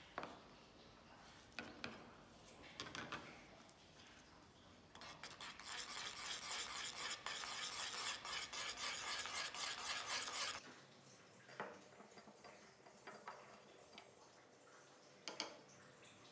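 Putty knife stirring and scraping a paste on a mixing board: a dense, rhythmic scratching for about five seconds from around five seconds in. A few sharp clicks and knocks of tools on the board come before and after.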